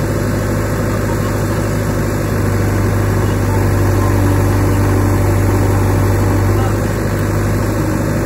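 JCB backhoe loader's diesel engine running steadily, picking up load for a few seconds in the middle as the backhoe arm works, then settling back.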